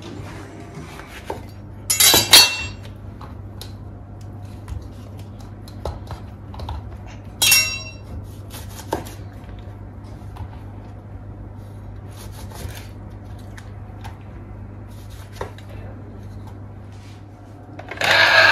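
Kitchen worktop sounds of dishes and glassware being handled, with two sharp ringing clinks about two and seven seconds in, and small knocks of a knife on a wooden cutting board, over a steady low hum. Near the end a loud jingle-bell sound starts.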